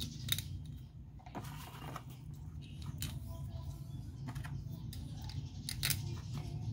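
A few sharp metallic clicks and taps at uneven intervals as a carburetor's top cover and bolts are handled and fitted by hand, the loudest near the end, over a low steady hum.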